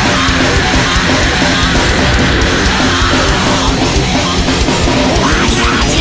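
Loud, heavy rock music from a band recording, in an aggressive metal style.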